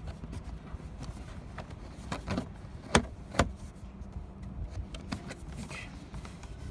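A few sharp clicks and knocks of car parts being handled and fitted back into place, the loudest about three seconds in, over a faint steady low hum.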